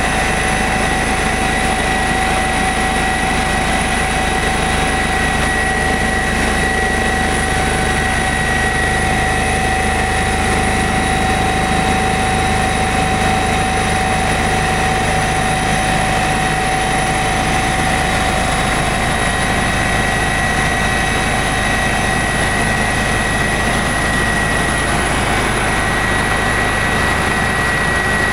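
Eurocopter EC145 twin-turbine helicopter in steady flight: an even, unchanging rumble of rotor and engine noise with several constant high-pitched whines over it.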